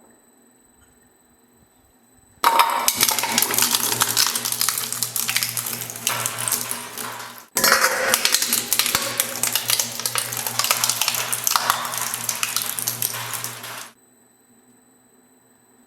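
Industrial shredder with a faint idle hum, then loudly crunching and clattering through hard, metallic objects over a steady low drone from its motor under load. The grinding starts about two seconds in, breaks off abruptly about halfway, resumes at once, and stops near the end, leaving the hum again.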